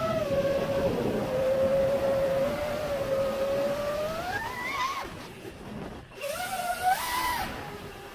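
Brushless motors of a 5-inch FPV quadcopter whining, heard from the onboard camera with wind rushing past. The pitch holds steady, climbs sharply about four to five seconds in as the throttle is pushed, drops away, then rises again near seven seconds.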